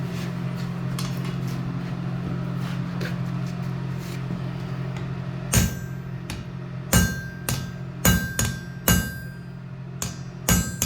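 Hammer blows on hot steel at the anvil: a steady low hum with a few light clinks, then from about halfway through a run of about eight irregular, ringing metal strikes.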